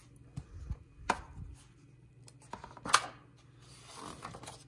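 A hardcover picture book being handled and its stiff pages turned by hand: several light taps and clicks, the sharpest about three seconds in, then a soft paper rustle near the end.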